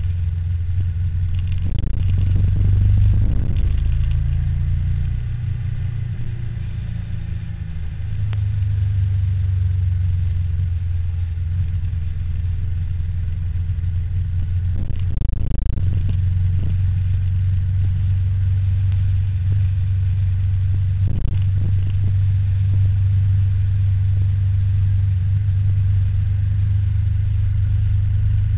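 Steady, loud low rumble of riding along a road, with vehicle noise; the level dips for a few seconds early on and swells briefly a few times.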